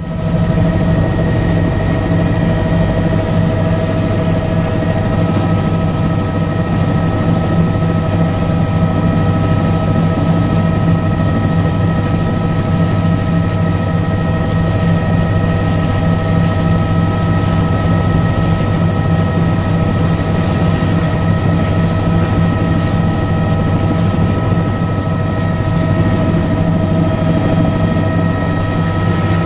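Bell 206 helicopter's Allison 250 turboshaft engine and rotors running steadily on the ground, heard from inside the cabin: a low, even thrum under a constant turbine whine at several pitches.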